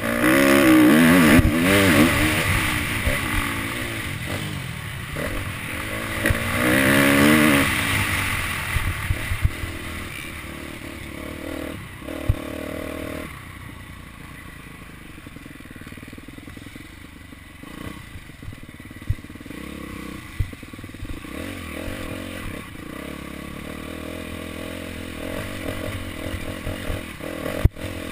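Motocross dirt bike engine revving hard twice within the first eight seconds, its pitch climbing and falling with the throttle, then running quieter at lower revs with occasional knocks.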